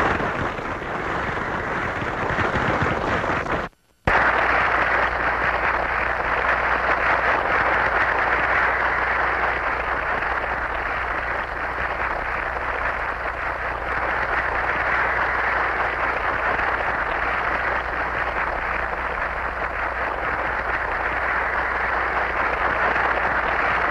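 Audience applauding steadily, with a brief drop-out about four seconds in.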